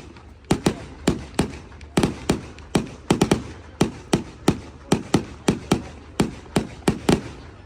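Fireworks going off in a rapid, uneven string of about twenty sharp bangs, two to three a second, each trailing off briefly.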